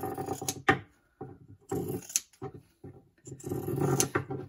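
Pinking shears cutting through the seam allowance of a cushion cover in about three separate strokes, each a snip that ends as the blades close.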